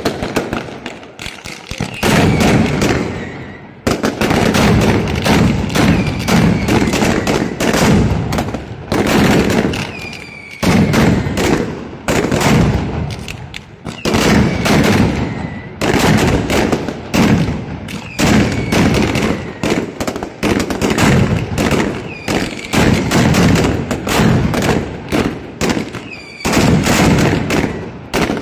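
Mascletà: dense, rapid volleys of firecrackers going off in loud waves every second or two, the bangs running together like machine-gun fire, with short falling whistles between some of the volleys.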